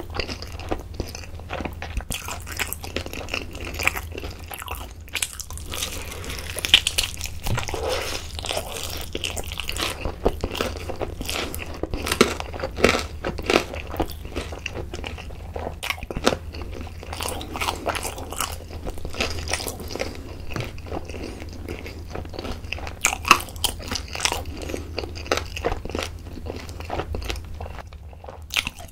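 Close-miked biting and chewing of a yangnyeom (sweet-spicy sauced) fried chicken drumstick: a steady run of sharp clicks and crackles as the meat and coating are bitten and chewed.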